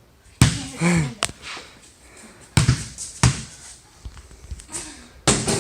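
A basketball bouncing about five times at irregular intervals, each a sharp thud, with a brief vocal sound about a second in.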